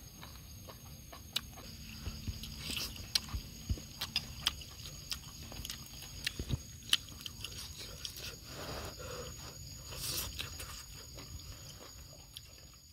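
A person biting and chewing food, with scattered sharp clicks and wet mouth sounds. A steady high insect buzz runs behind it.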